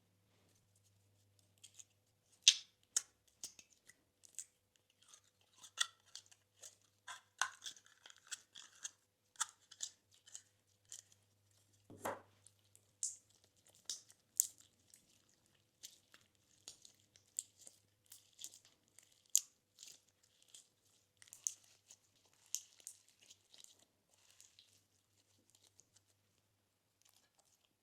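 Slime being squished and stretched by hand: irregular sticky crackles, clicks and small pops, a few of them louder, dying away near the end.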